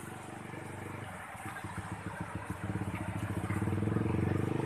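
An engine running with an even low pulsing that grows louder from about a second in.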